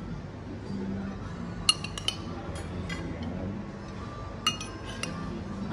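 A metal spoon clinking against ceramic plates and bowls as rice is served, about four sharp clinks, each with a brief ring.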